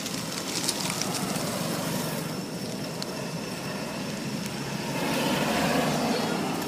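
Steady outdoor background rumble and hiss, with a few faint clicks early on. It swells a little louder about five seconds in.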